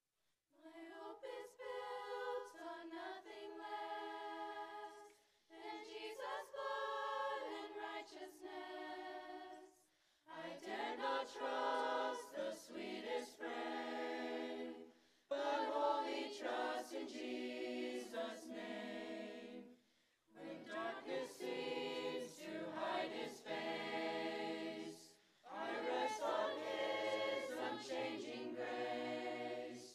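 A mixed youth choir of seventh to twelfth graders singing in parts without accompaniment, in phrases broken by short pauses. It begins with higher voices only, and lower voices join in the later phrases.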